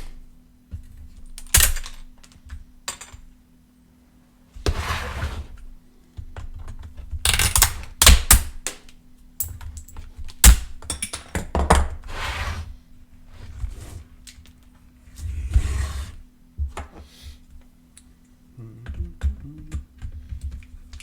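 Hard plastic battery-pack frame being pried off the cells with a hand tool: irregular clicks, snaps and knocks, with several scraping stretches about a second long as the plastic is worked loose. A faint steady low hum runs underneath.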